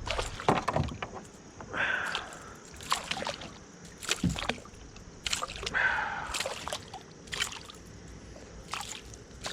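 Irregular knocks, clatter and water sloshing as a hooked chain pickerel thrashes in a kayak while being handled.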